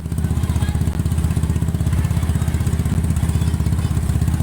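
A small engine running steadily at an even, low throb.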